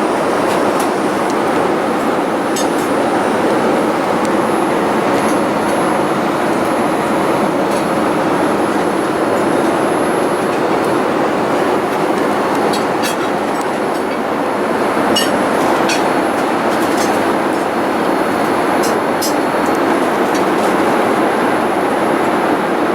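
Steady cabin noise of a Boeing 787-8 airliner: an even rush of engine and airflow noise that holds at one level, with faint, scattered light clicks.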